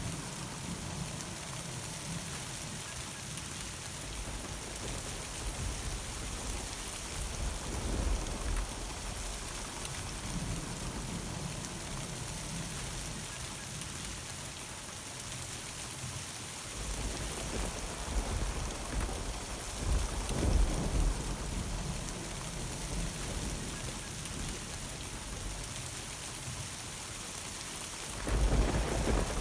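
Steady summer rain pattering on surfaces, with rolls of thunder rumbling through it several times, the strongest about twenty seconds in and again near the end.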